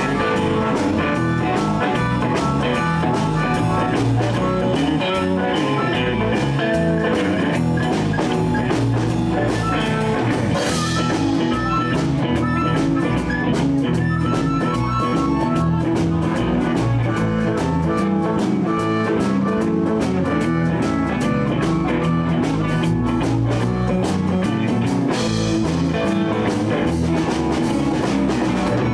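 Live blues band playing a song: electric guitars, bass and drum kit, with drum strokes keeping a steady beat and cymbal washes about ten seconds in and near the end.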